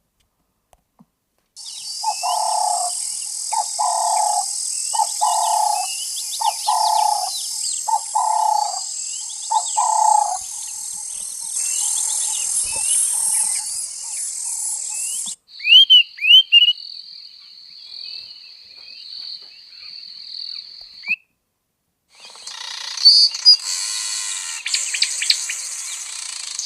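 Nature-sound ringtones on a Google Pixel 9 played one after another through the phone's speaker: recorded birdsong with quick chirps over a hiss. The first has a low call pulsing about once a second, the second a steady high insect-like trill, and the third, after a short gap, busy chirping.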